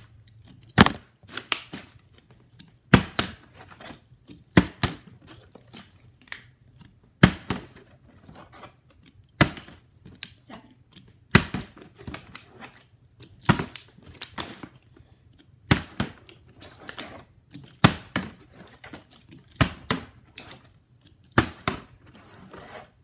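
Plastic water bottle flipped again and again onto a wooden floor: each toss lands with a sharp smack about every two seconds, followed by a few smaller clatters as it bounces and tips over.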